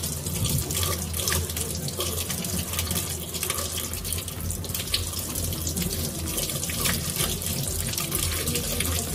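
Tap water running steadily into a sink as oranges are washed under the stream, with uneven splashing.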